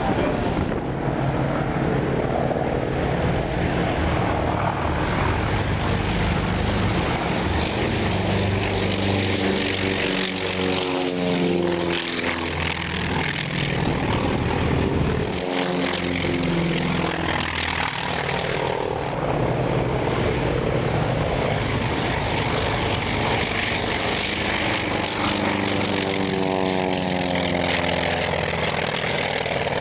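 Two North American T-28 Trojan trainers flying past in formation, their radial engines and propellers droning, the pitch falling as they pass, once about a third of the way in and again near the end.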